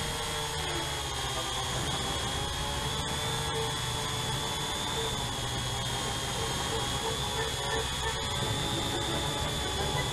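Syma X8C quadcopter's motors and propellers running in flight, a steady high-pitched whine.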